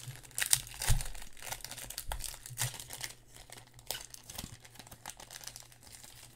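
Plastic foil wrapper of a basketball trading-card pack crinkling and tearing as it is pulled open by hand, with sharp irregular crackles that are loudest about a second in and thin out after about three seconds.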